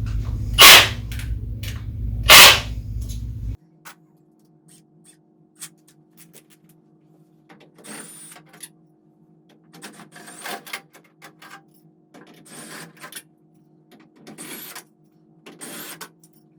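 Cordless drill with a socket spinning out cap head screws in short bursts, one every second or two, some with a brief rising motor whine. In the first few seconds, two sharp clacks over a steady low hum.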